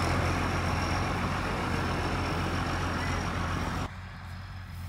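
Tracked rice combine harvester running steadily: a low engine drone and dense machine noise with a thin high whine over it. Near the end the sound drops abruptly to a much quieter hum.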